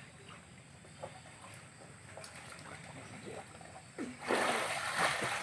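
Pond water splashing around people wading waist-deep: faint trickles and drips at first, then loud splashing about four seconds in.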